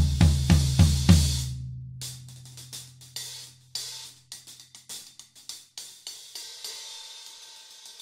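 Hi-hat sound check on a pair of 16-inch Dream cymbals, an Energy over a Bliss, played with drumsticks. A quick run of loud drum and cymbal strokes cuts off suddenly about a second and a half in. Lighter, separate stick strokes on the hi-hat follow, then a softer ringing cymbal wash near the end.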